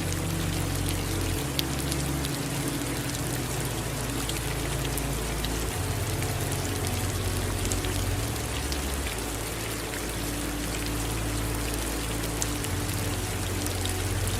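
Steady rain falling, with many individual drops ticking, over a low steady rumble.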